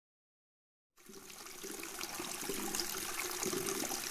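About a second of silence, then the sound of rushing, splashing water fades in and runs on steadily.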